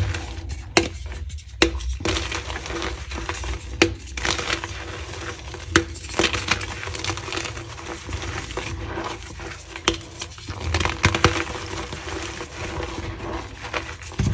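Hands scooping, squeezing and crumbling a heap of powdered reformed gym chalk: a continuous soft, gritty crunch, broken by sharp crackles of small chalk chunks snapping at irregular intervals.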